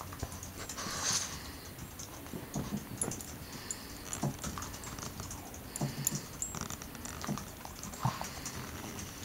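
Boston terrier sniffing in short, irregular bursts, with scattered light clicks.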